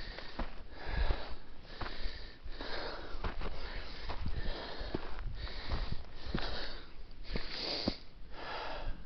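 A hiker breathing hard and fast as he climbs a steep slope, about one breath every second. Sharp ticks of steps or scrapes on rocky ground come in between.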